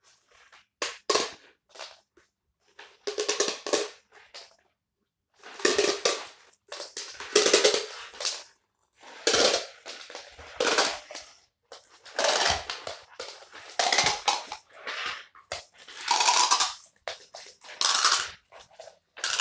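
The plastic spiral core of a cold-shrink EPDM rubber tube being pulled out in repeated tugs. Each tug makes a short, sharp, noisy burst, roughly one a second, as the ribbon unwinds and the rubber shrinks down onto the rod.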